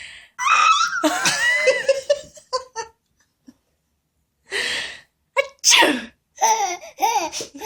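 Two loud sneezes about four seconds apart, each a sharp noisy burst, followed near the end by a baby's short bursts of laughter.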